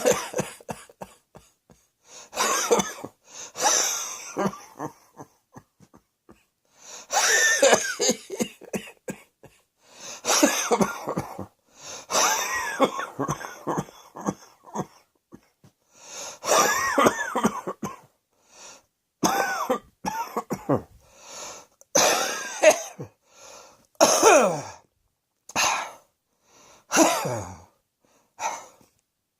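A person coughing over and over, in bursts of a second or two with short pauses between. Some of the coughs are voiced, with a pitch that falls away on the last ones.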